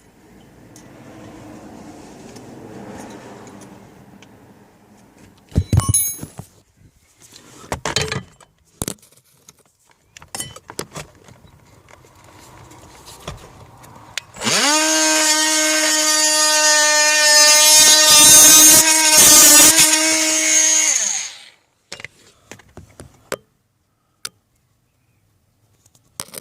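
A small handheld power tool runs steadily for about six seconds at a high, even pitch, then stops. It is cutting into the plastic heater blower case. Before it there are scattered knocks and handling clicks on the plastic.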